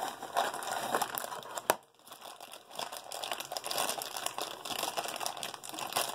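Crinkling of a foil blind-box bag being handled and worked open in the hands, with a sharp click just under two seconds in and a brief pause after it.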